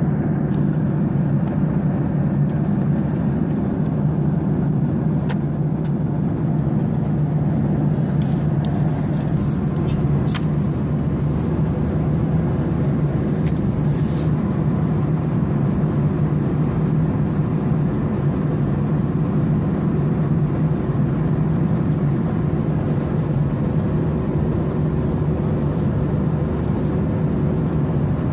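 Steady cabin drone of a Boeing 737-800 airliner in cruise: its CFM56 jet engines and the airflow over the fuselage, heard from a seat beside the engine. A few light clicks and rustles come from a paper menu being handled, mostly in the middle.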